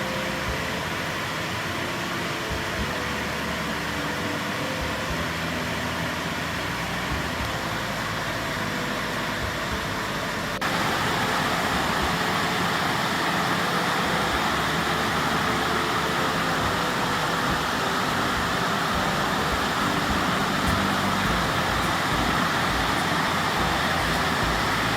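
Waterfall: the steady rush of falling water, stepping up louder and brighter about ten seconds in.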